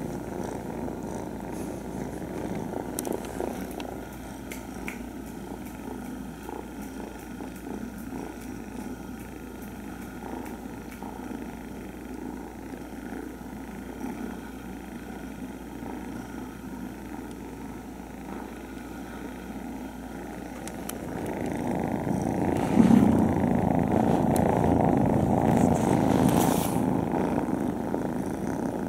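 Several young kittens purring together in a close huddle, a steady dense rumble. It grows louder about three quarters of the way through, where a couple of brief knocks stand out.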